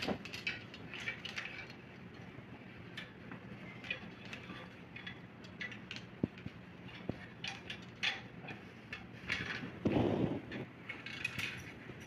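Clothes hangers clicking and clattering against a hanging rail as laundry is hung up to dry, in many short, irregular clicks. About ten seconds in there is a louder rustling burst as a garment is handled.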